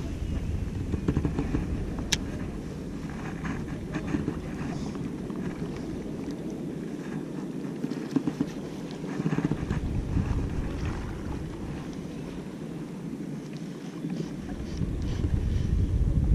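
Wind buffeting an action camera's microphone, a low rumble that eases off twice and strengthens near the end, with a sharp click about two seconds in and a few faint ticks.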